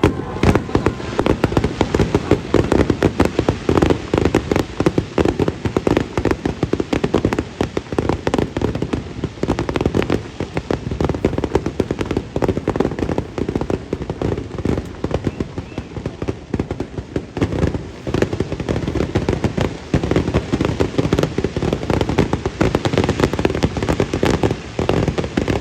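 Fireworks display going off in a dense, continuous barrage of bangs and crackles, many per second.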